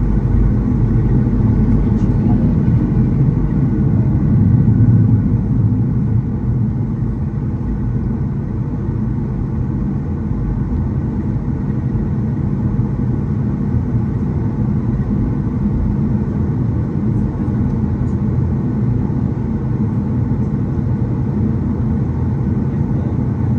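Cabin noise inside a Southwest Boeing 737 on the ground before takeoff: the steady low rumble and hum of the jet engines, swelling slightly about four seconds in.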